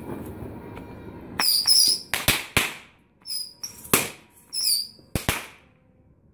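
Firecrackers going off: after a low background din, a run of sharp, irregular bangs starts about a second and a half in, some in quick pairs, and falls away to a lull near the end.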